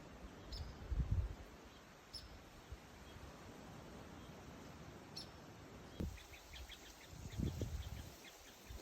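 Birds chirping outdoors: a few single high chirps, then a quick run of short chirps in the second half. Low rumbling bumps come about a second in and again near the end.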